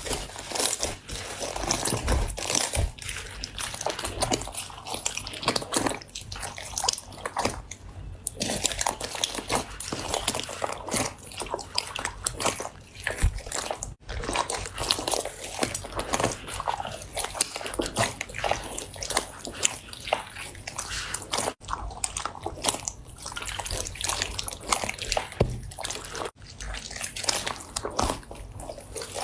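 Slime being squeezed, stretched and poked by hand: a dense run of wet clicks, pops and crackles that breaks off briefly a few times.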